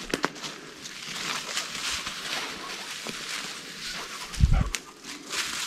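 Footsteps pushing through forest undergrowth: leaves rustling and twigs snapping and crackling, with a dull heavy thump about four and a half seconds in.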